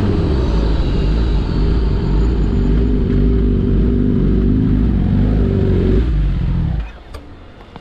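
Sport motorcycle engine running low and steady with a deep rumble just after the revs have fallen off; the sound drops away about seven seconds in.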